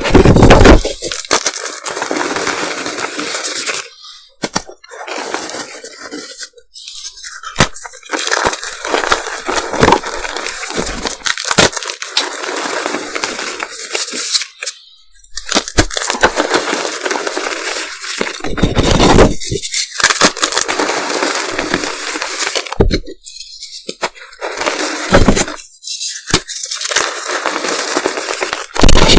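Reformed gym chalk shaped like M&M sweets being crushed and crumbled: dry crunching and crackling in runs of a few seconds with short pauses between, with sharp loud cracks at the start and again near the end.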